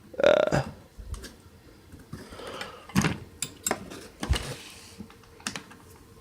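Metal combination wrenches being handled: a series of irregular clicks and knocks as they are picked up, turned over and set down, the loudest right at the start and again a little past the middle.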